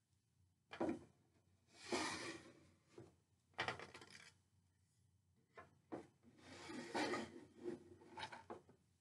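Flat wooden panels being handled and fitted into a wooden box-shaped model: a few sharp wood-on-wood knocks and several scraping rubs as pieces slide against each other.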